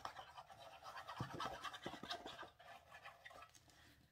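Faint, irregular scratching and rustling of kraft card being glued and handled, dying away in the last second.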